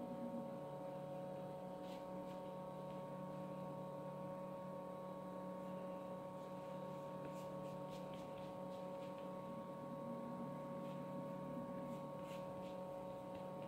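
A steady, fairly quiet hum made of several fixed tones that never change, with a few faint soft clicks about 2, 7–8 and 12 seconds in.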